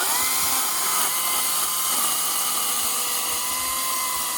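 Makita 18-inch brushless battery chainsaw running at steady full speed with a high-pitched electric whine, cutting through wet wood.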